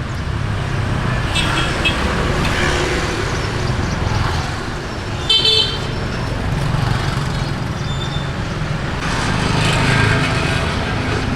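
Street traffic running steadily, with motorbikes and cars passing. A vehicle horn toots briefly about five seconds in.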